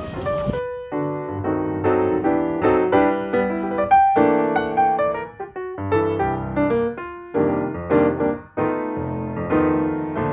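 Background piano music, a gentle run of single notes and chords.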